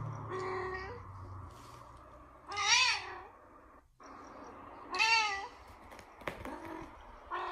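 Cat meowing: a soft meow just after the start, then two loud, drawn-out meows about two seconds apart, each rising then falling in pitch.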